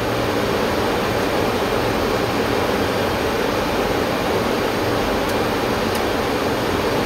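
Steady, even rushing noise in a Boeing 737-800 cockpit on short final, descending between the 200 and 100 ft radio-altitude callouts.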